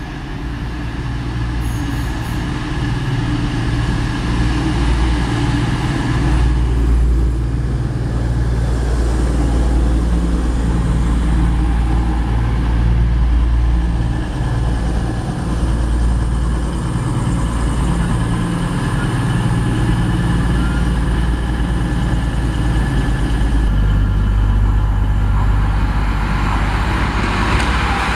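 Diesel trains at a platform: the underfloor engines of an East Midlands Trains Class 222 Meridian diesel multiple unit running with a steady deep drone. Then, from about three quarters through, a Class 43 HST power car's diesel engine comes in and grows louder as it draws past close by near the end.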